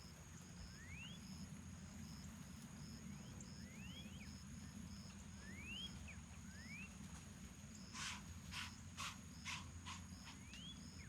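Whitetail deer snorting in alarm: a run of about six short, sharp blasts of air about half a second apart, starting about eight seconds in. Under them runs a faint background of insects trilling and ticking, with short rising chirps now and then.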